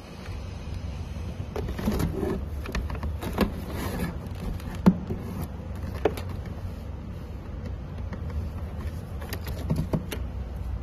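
Wiring harness and corrugated cable conduit being handled inside a cardboard box holding a generator: scattered rustling, light knocks and clicks, the sharpest about five seconds in, over a steady low rumble.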